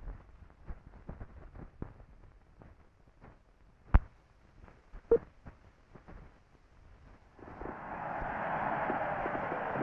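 Old film soundtrack running over a countdown leader: faint, irregular crackles and pops, a sharp click about four seconds in, then a short pop with a brief beep about a second later. About seven and a half seconds in, a dense, steady crackling of fireworks sets in.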